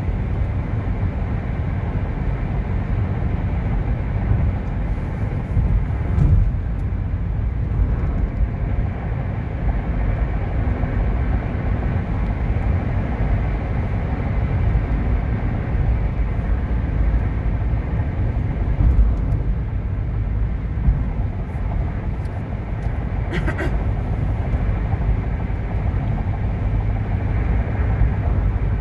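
Steady low road and tyre noise with engine hum inside a car's cabin while driving at highway speed.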